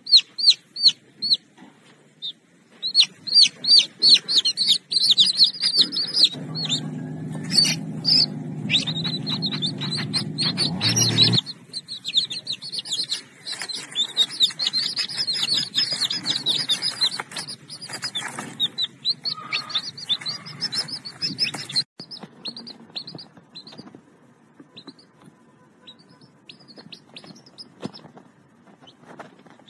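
Young chicks peeping: rapid high cheeps, several a second, dense and loud at first, then sparser and fainter after about 22 seconds. From about 6 to 11 seconds a low steady hum with several tones runs beneath them and cuts off suddenly.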